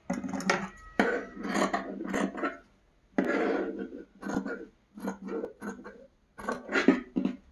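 Steel scissors cutting through cotton fabric: a string of cutting strokes in irregular bursts, with the cloth rustling as it is handled.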